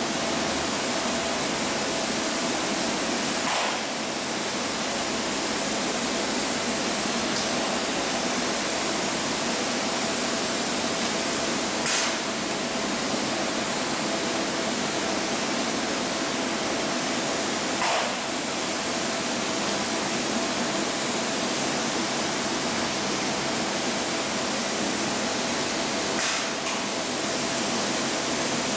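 Gel coat spray gun hissing steadily as it sprays gel coat onto a fibreglass deck mould, with a faint steady tone underneath. The spray breaks or dips briefly four times.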